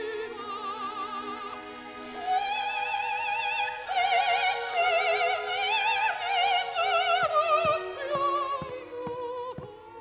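A soprano sings an operatic phrase with wide vibrato, climbing to high held notes in the middle and descending again near the end.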